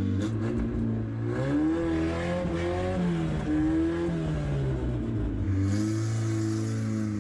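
Ford Festiva's small engine revving up and down several times as the stripped race car drives off, then settling into a steady run near the end.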